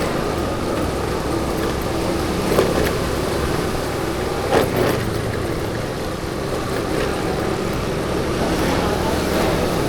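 Road traffic noise, steady, with two brief louder sounds about two and a half and four and a half seconds in.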